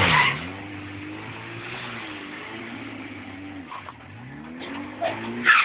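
Lada 2107's four-cylinder engine revving hard for a burnout over the hiss of a spinning tyre, its pitch wavering, dropping about four seconds in and climbing again. Louder bursts of noise come at the start and near the end.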